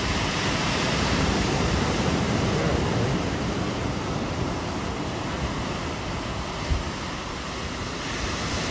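Ocean surf breaking and washing up over shoreline rocks and sand: a steady rushing noise, with one small thump near the end.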